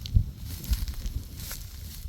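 Dry straw rustling and crackling, with a low rumble underneath and a thump about a quarter second in.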